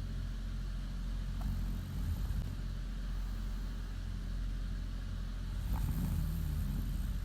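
Steady low hum, with two soft, slow swells about four seconds apart, in the rhythm of a sleeping woman's breathing or faint snoring.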